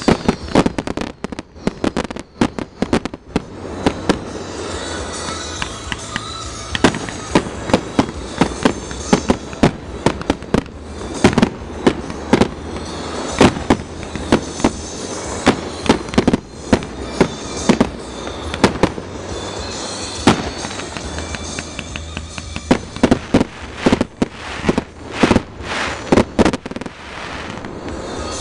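Fireworks display going off in rapid, irregular bangs as aerial shells burst one after another, with music playing underneath.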